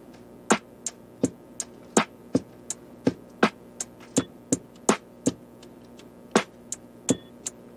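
Background music: a sparse electronic beat of sharp percussive hits, about two to three a second, over a faint sustained backing.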